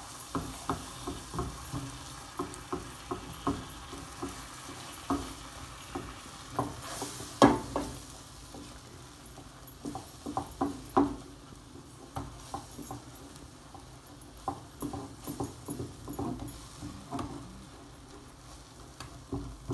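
Silicone spatula stirring and scraping a thick sauce around a non-stick frying pan in irregular strokes, with one louder knock against the pan about seven seconds in. The sauce sizzles steadily underneath as it fries.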